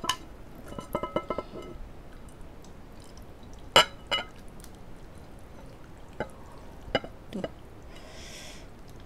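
A metal spoon clinking against a stainless steel pot and ceramic bowl as hot noodles and broth are poured and scraped from the pot into the bowl, with dripping and pouring liquid. Several sharp clinks, the loudest about four seconds in, and a short splashing hiss near the end.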